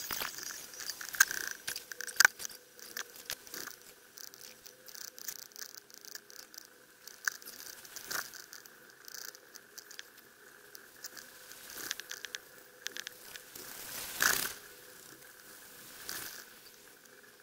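Faint sound of a chairlift ride from a wearable camera, played at ten times speed: a dense run of irregular small clicks, crackles and rustles over a faint steady hum, with a louder rustling burst about fourteen seconds in.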